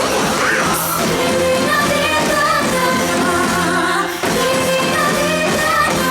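Pop-style music with a singing voice over it, playing steadily throughout.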